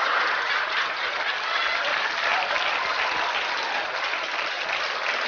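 Sitcom audience applause: a dense, steady clapping that eases off slightly after the first second.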